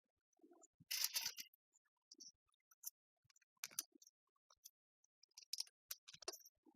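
Scattered small clicks and a brief clatter of hard parts being handled as the diaphragm pump's head is fitted back over its valves, the loudest about a second in.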